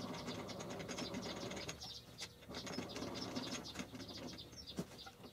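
Grizzly G0704 mill head being cranked down its column by hand: a run of rapid, light mechanical clicking from the crank and its gearing, with a short lull about two seconds in.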